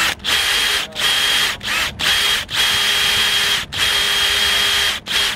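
A hand-held power tool run in a string of short bursts, about eight in five seconds. Each burst holds a steady whine and stops for a brief pause before the next.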